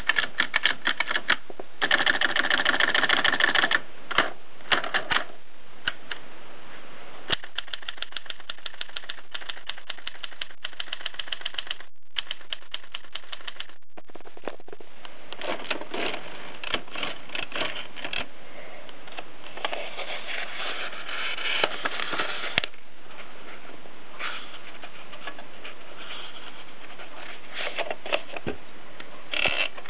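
1951 Bakelite Express portable typewriter being typed on: runs of sharp key strikes at several a second, with a brief pause a little before the middle.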